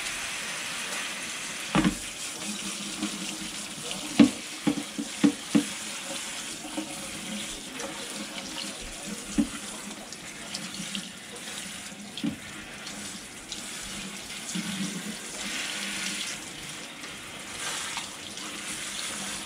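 Kitchen faucet running steadily into a stainless steel sink, the water splashing through a plastic colander as boiled beef liver is rinsed by hand. Several sharp knocks sound over it, with a cluster about four to six seconds in.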